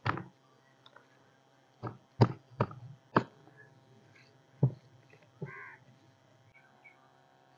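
Large knife chopping through a tuna's head and backbone onto a table: about six sharp chops spread over the first five seconds. About five and a half seconds in, a crow caws once.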